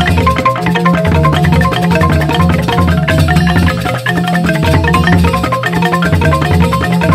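Balinese joged bungbung gamelan: bamboo grantang xylophones struck with mallets in fast, dense interlocking patterns, over a low pulsing bass.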